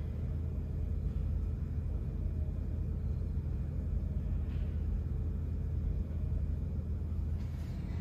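Steady low rumble of background noise, with a faint brief hiss about four and a half seconds in and another near the end.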